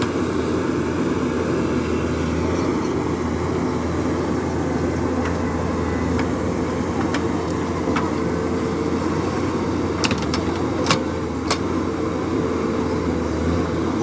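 JCB 3DX backhoe loader's diesel engine running steadily under hydraulic load as the backhoe arm digs and swings soil. Near the end there is a quick cluster of sharp knocks.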